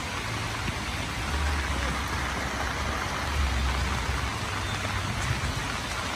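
Steady rain falling on grass and leaves, an even hiss, with patches of low rumble underneath.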